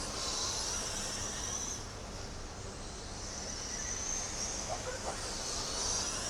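Radio-controlled rubber-tire race trucks running laps: a high-pitched whine swells and fades every two to three seconds as the trucks pass, over a steady hiss.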